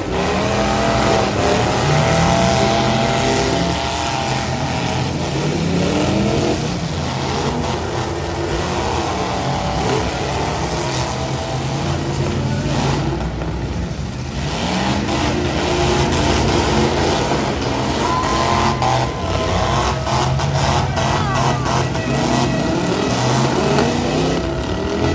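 Several demolition-derby trucks' engines revving hard at once, their pitch rising and falling over and over as they drive and ram in the arena.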